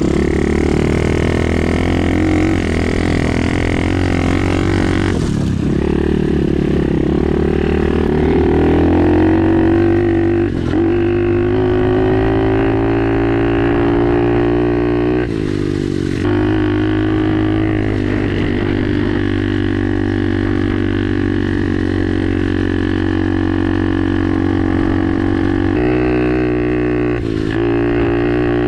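Pit bike's single-cylinder engine running under way: a steady drone whose pitch dips briefly and climbs back about four times.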